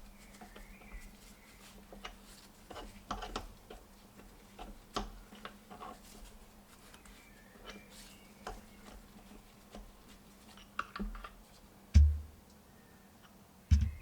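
Irregular metal clicks and knocks of hand tools working inside an opened gearbox, with two heavier thumps near the end, over a faint steady hum.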